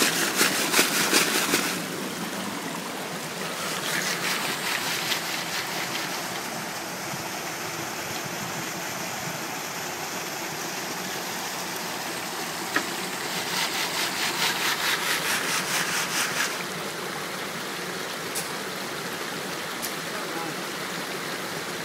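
Creek water running steadily over rocks and a small waterfall. At the start, and twice more later, comes a rhythmic shaking and sloshing: a classifier sieve full of wet gravel being shaken over a bucket of water.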